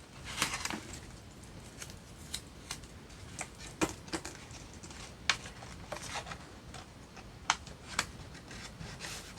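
Paper and masking tape being handled at a craft table: a short rustle at the start, then scattered small taps and clicks.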